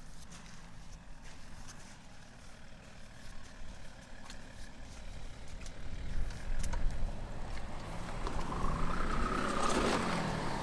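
INEOS Grenadier 4x4 driving off-road over loose dirt, its engine rumbling and growing louder about halfway through. Near the end it passes close, and the engine note rises and then falls.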